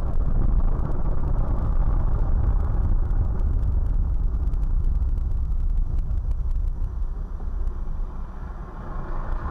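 A vehicle's engine and road noise, a steady low rumble that eases slightly near the end.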